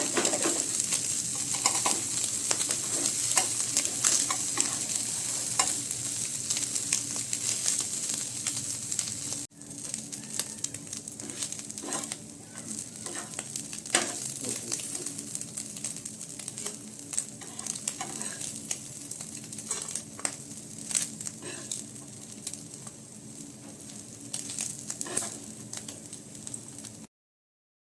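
Small fish frying in oil in a pan, sizzling steadily, with scattered clicks of a utensil stirring them. About nine seconds in the sizzle cuts off abruptly and carries on quieter, then it stops just before the end.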